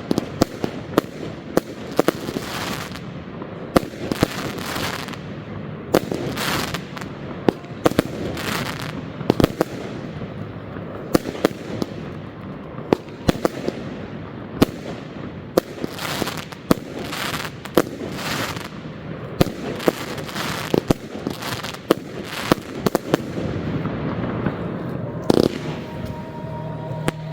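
Professional fireworks display: a rapid, irregular barrage of aerial shell bursts, many sharp bangs a second with crackle between them.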